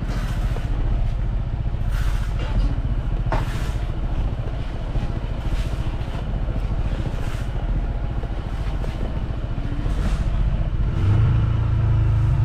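Vehicle engine running while driving on a rough road, with occasional knocks and rattles; the engine note grows stronger about eleven seconds in.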